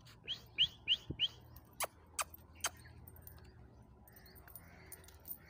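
Four quick rising whistled chirps, a person calling a dog, then three sharp clicks.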